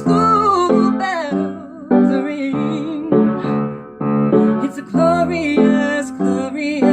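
Music: piano chords with a voice singing long, wavering held notes on top, near the start and again about five seconds in.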